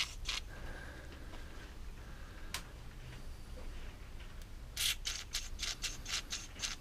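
WD-40 aerosol spray squirted through its straw in short hissing puffs, about eight in quick succession over the last two seconds, flushing out the lawnmower carburettor's jets and passages after cleaning. A single sharp click comes earlier.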